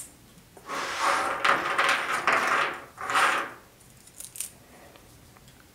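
3D-printed plastic gears being pulled off a printer's build sheet and their brim peeled away: crackling, scraping rustles for about three seconds, then a few light plastic clicks.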